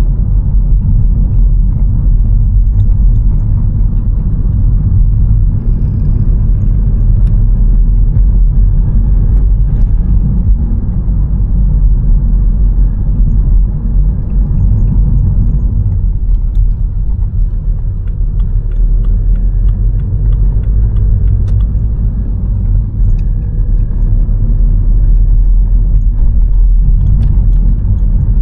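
A car driving on a city road, heard from inside the cabin: a steady low rumble of tyres and engine, with faint clicks here and there.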